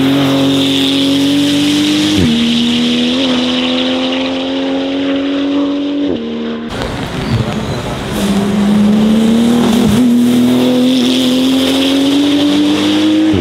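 Porsche 911 GT2 RS Clubsport 25's 3.8-litre twin-turbo flat-six under hard acceleration. The pitch climbs steadily and drops sharply at each upshift, twice in the first pull and again in a second pull after a cut.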